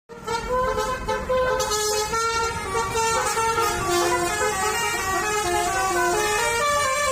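Basuri telolet horns on buses playing melodies, the notes stepping up and down several times a second, at times two horns sounding at once, over a low engine rumble.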